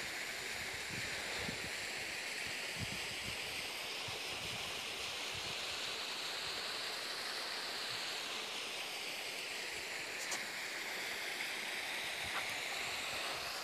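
Steady rushing of a creek waterfall pouring into its pool, its tone drifting slowly.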